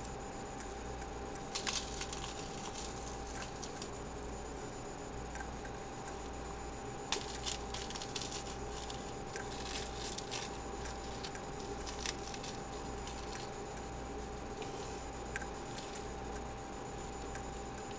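Dry Texas toast croutons being crumbled by hand, giving a few faint, scattered crackles over a steady electrical hum.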